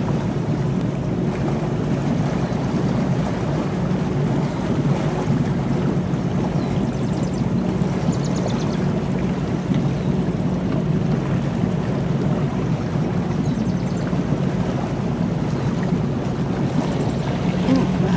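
A 32-foot cabin cruiser's engine running steadily under way, a constant low drone, with water washing along the hull.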